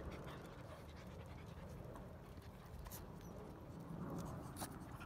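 Small dogs panting close by, with a couple of sharp clicks about three seconds in and near the end.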